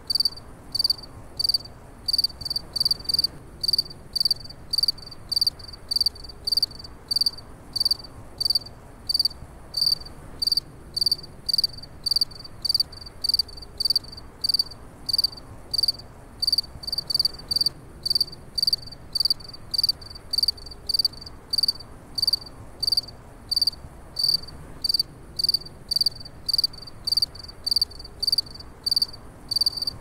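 Crickets chirping: short high chirps repeated about twice a second, sometimes in quick pairs, over a faint low background hiss.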